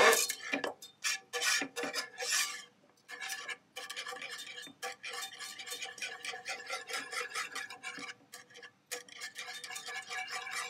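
Wire whisk beating butter into a butter sauce in a pan, scraping and rattling against the pan several strokes a second. The strokes are irregular at first, then quicker and steadier after a short pause about three seconds in; this is the butter being whisked in to emulsify the sauce.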